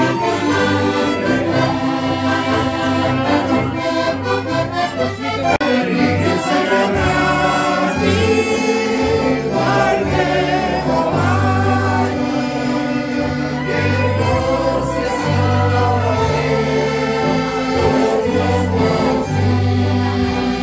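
A small band of violin, clarinet and two accordions, one of them a Roland digital accordion, playing a song while several men sing along in chorus. An accordion bass line steps between notes in a steady rhythm under the melody.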